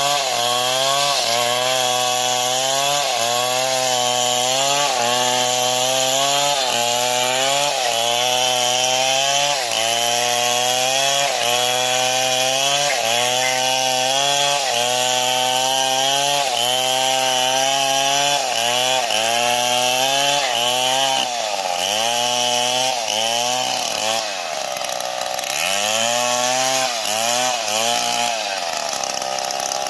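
STIHL MS 070, a big single-cylinder two-stroke chainsaw, cutting wood at high revs. Its pitch sags and recovers about once a second as the chain loads in the cut, and bogs down deeper and more slowly in the last third.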